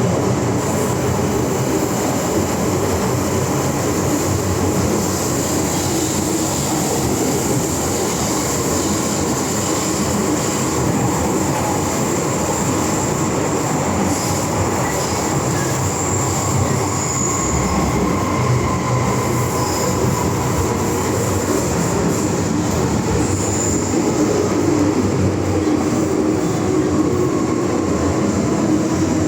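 Interior running noise of an MTR M-train electric metro car in the Island Line's tunnels: a steady loud rumble and roar of wheels on rail, with a faint high whine throughout and wheel squeal.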